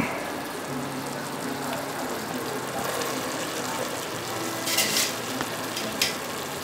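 Steady sizzling hiss from the biryani pot of chicken gravy on the gas stove while spoonfuls of parboiled rice are layered in. A clink at the start, a brief scrape of the metal spoon about five seconds in, and a short clink about a second later.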